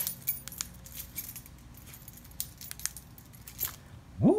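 Car keys and key fob jangling in a hand: a quick run of small metallic clicks for the first second and a half, then scattered single clicks. A man's exclamation begins right at the end.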